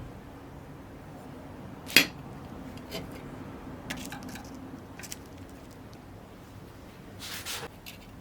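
Metal clinks and knocks, with one sharp loud knock about 2 s in, a few lighter clicks after it and a brief scrape near the end, over a steady low hum.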